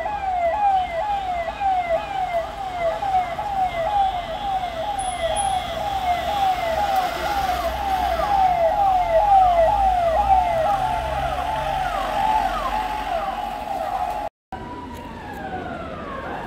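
Emergency vehicle siren on a fast yelp: a falling whoop that repeats about two and a half times a second. After a brief cut near the end it switches to a slower rising and falling wail.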